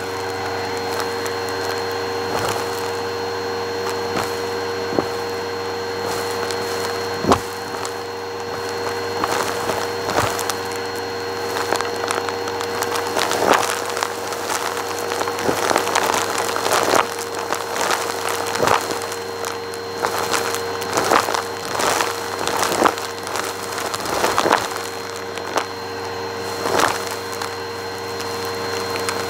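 Bissell Purple Helix vacuum running steadily, its open hose sucking up a pile of lint, glitter and confetti. Grit and debris crackle and click through the hose, thickest in the second half.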